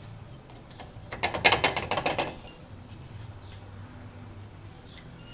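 Quick metal-on-metal rattle from steel tools and spindle parts at the bench vise: a run of rapid clicks lasting just over a second, starting about a second in.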